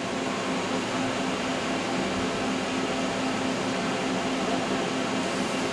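Steady hum of a powered-up Fadal CNC vertical machining center's control: cooling fans running with an even low drone.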